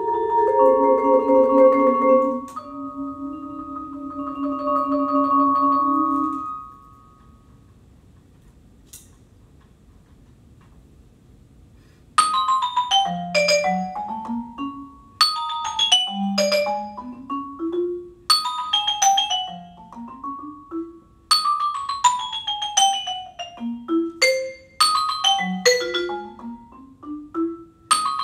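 Solo vibraphone: sustained chords ringing for about six seconds and dying away, then a pause of about five seconds. After that come about ten quick flurries of mallet strokes a second or two apart, the high notes falling while the low notes climb.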